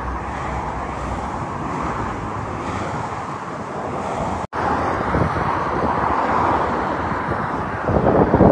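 Motorway traffic rushing past steadily, with wind on the microphone. The sound cuts out briefly about halfway through, and there is a louder rush near the end.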